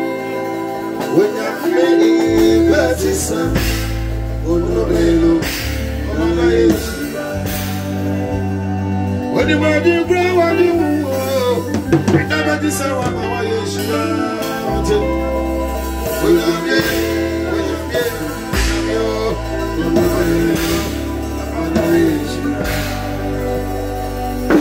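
A live band playing an upbeat gospel song through a PA: electric guitars, bass, conga drums and a drum kit keep a steady beat while a man sings.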